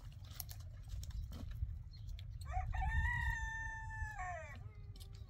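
A rooster crowing once: a single call of about two seconds that starts about halfway through, rises, holds and falls away at the end, over a steady low rumble.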